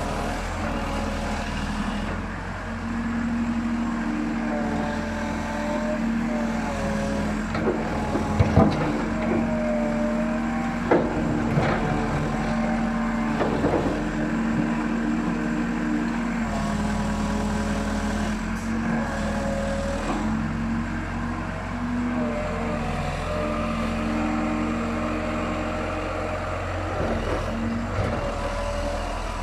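Diesel engine of a 1974 Lännen UM 1680M wheeled excavator running under working load, its note dipping and rising as the boom and bucket work, with a higher whine that shifts in pitch. A few sharp clanks about eight and eleven seconds in.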